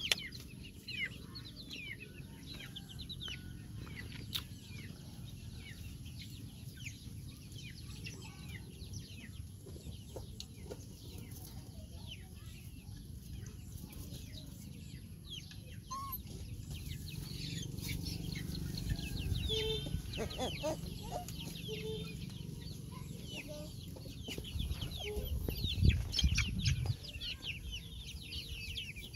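Chickens clucking, with many short, high calls that fall in pitch, repeated throughout. A low rumble rises in the second half.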